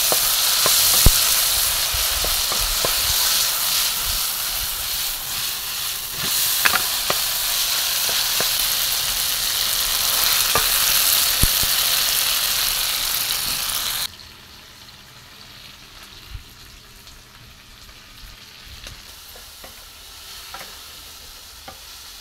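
Kidney and liver sizzling in a pan over a charcoal jiko, a steady hiss with a few light knocks of stirring. A little past halfway the sizzle drops away abruptly to a much fainter hiss with small clicks.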